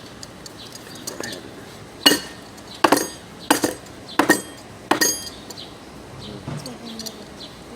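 Five sharp metallic clinks, each with a short bright ring, about one every 0.7 s: a metal tool knocking against the clutch plates and case of a disassembled automatic transmission while working the clutches loose.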